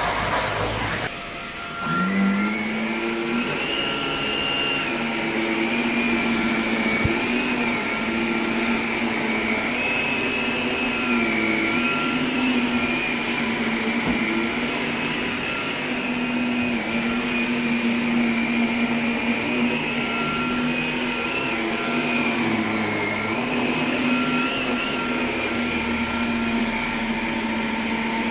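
Upright vacuum cleaner working over carpet. It opens with a hiss of air, dips briefly, then the motor spins up about two seconds in with a quickly rising pitch. After that it runs with a steady whine that wavers slightly as the cleaner moves over the carpet.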